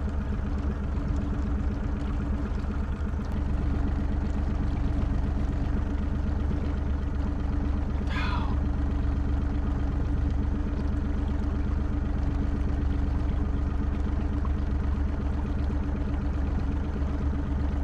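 Boat's outboard motor running steadily at trolling speed, a low even hum. A brief high squeal falling in pitch cuts in once about eight seconds in.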